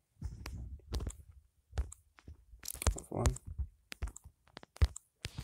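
A scattering of short, sharp clicks and taps, with a brief murmured voice about three seconds in.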